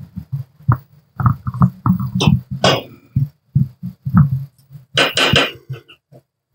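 A spoon stirring curry in a steel pot, scraping and knocking against the pot in a series of irregular clanks, the loudest about five seconds in.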